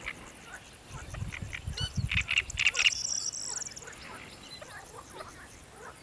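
A duck gives a short run of four or five loud quacks about two seconds in. A small bird's high, fast trill overlaps and follows it.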